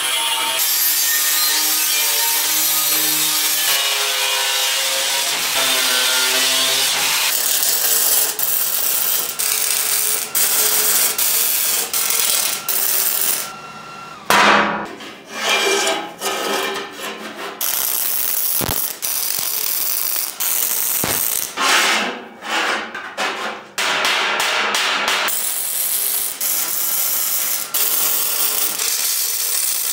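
Steel fabrication sounds: an angle grinder cutting through thick 3/8-inch steel pipe at the start, then metal clatter and scraping with short pauses about halfway, and the steady crackle of MIG welding near the end.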